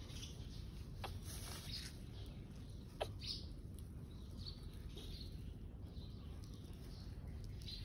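Faint birds chirping several times in the background, with one sweeping call about three seconds in, over a low steady rumble.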